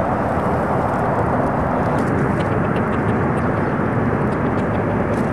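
Steady, loud, unpitched rumbling noise that holds level throughout, with a few faint ticks.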